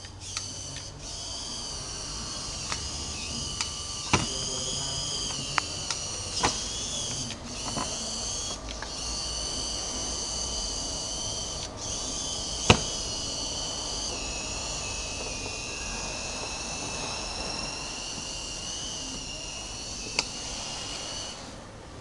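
Hobby servo motors driving a 3D-printed tracked robot: a steady high-pitched gear whine that wavers and dips in pitch as the load changes, with several sharp clicks, the loudest a little past halfway.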